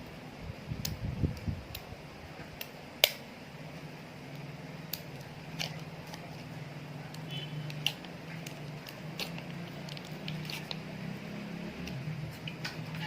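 Slime being squeezed and worked by hand, giving scattered sticky clicks and pops, with one sharp pop about three seconds in and a few soft thumps early on. A low steady hum runs underneath from about four seconds in.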